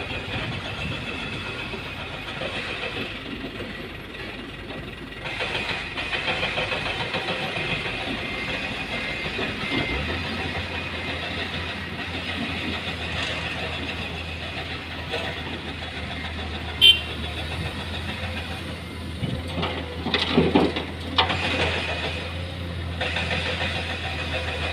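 Engine running steadily. A low hum comes in about ten seconds in, there is a sharp click about two-thirds of the way through, and a few louder knocks follow.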